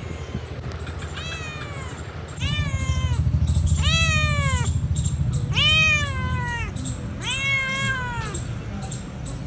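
Domestic cat meowing repeatedly, about six meows that each rise and fall in pitch, the later ones louder and longer. A low steady rumble runs underneath.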